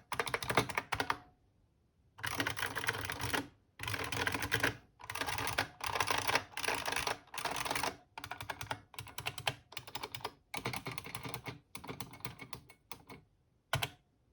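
IBM Model M buckling-spring keyboard being typed on: fast runs of loud, crisp key clicks in bursts of about a second, with short pauses between them, slowing to a few last keystrokes near the end.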